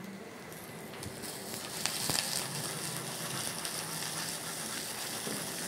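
Diced zucchini pulp sizzling in hot oil in a small stainless-steel saucepan, the sizzle getting louder about two seconds in, with a couple of clicks from a spoon stirring it.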